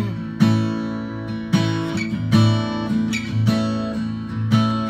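Acoustic guitar strummed between sung lines, with a fresh chord struck about every half second to a second, each left to ring.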